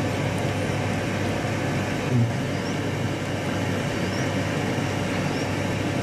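A steady mechanical hum and hiss runs throughout, with a few faint, short rising peeps from quail chicks in the second half.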